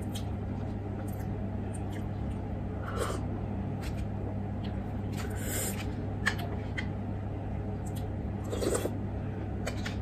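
Eating at a meal tray: a metal spoon scraping and clinking against a foil dish and bowls, a few short clicks and scrapes spread through, over a steady low hum.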